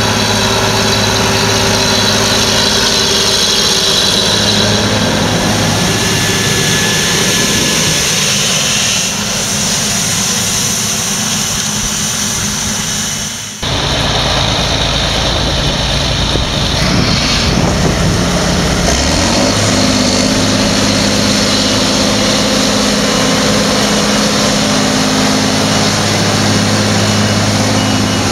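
Large diesel tractor engines working in the field with a steady low drone: first a John Deere tractor pulling a tillage implement, then, after an abrupt cut about halfway through, a big articulated four-wheel-drive tractor running.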